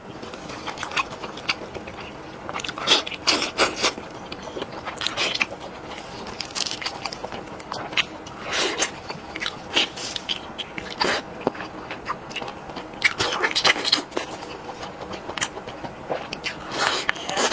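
Close-up eating sounds: crunchy bites into crispy-skinned chicken, with crackling crunches in irregular clusters and chewing between them.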